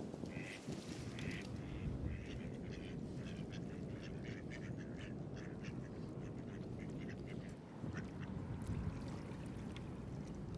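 Mallards quacking, many short calls one after another, from several birds at once.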